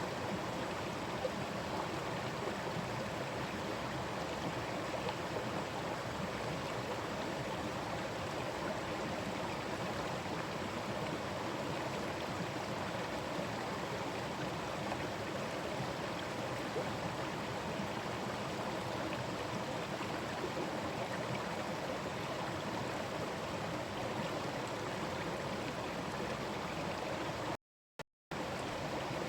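Forest stream running, a steady rush and gurgle of flowing water. The sound cuts out for an instant twice near the end.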